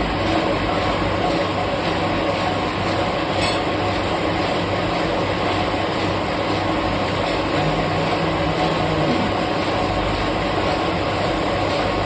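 Metal lathe running, a steady loud mechanical noise with a low hum, its pitch briefly joined by a second low tone about eight seconds in.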